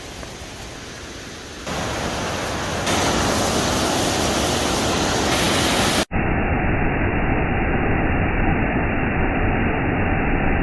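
Waterfall rushing, a steady roar of falling water. It gets louder in two steps in the first three seconds, and about six seconds in it cuts to a duller, muffled version of the same rush.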